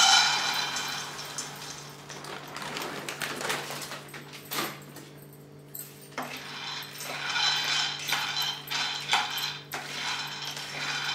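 Raw peanuts poured from a plastic packet rattle into a hot non-stick kadai, the pour fading out in the first second or two. They are then stirred around the pan with a spatula, giving scattered light rattles and clicks, with a steady low hum underneath.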